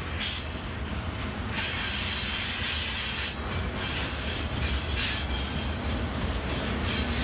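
Two TasRail diesel locomotives hauling a container train approach and pass below. A steady low engine drone sits under wheel-and-rail noise that grows from about a second and a half in, with repeated clatters. A thin, steady high squeal comes from the wheels on the curve.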